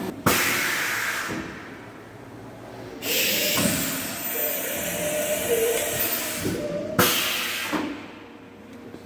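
Haas VF-6/50 vertical machining centre (50-taper) going through a tool change: three sudden bursts of compressed-air hiss, each opening with a clunk. The first comes just after the start and lasts about a second, a long one runs from about three to nearly seven seconds in, and a short one comes at about seven seconds.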